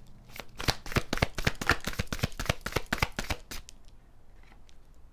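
A tarot deck being shuffled by hand to draw a clarifier card: a rapid run of card snaps, about ten a second, for some three seconds, then a few scattered taps as the cards settle.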